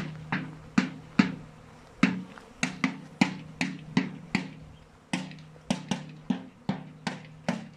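Background music with a steady beat: sharp drum-like hits two to three times a second over a sustained low note.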